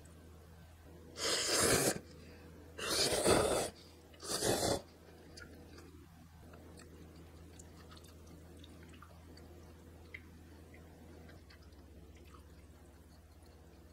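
A person slurping spicy beef-brisket ramen noodles: three airy slurps, each under a second, close together, then only a low steady hum.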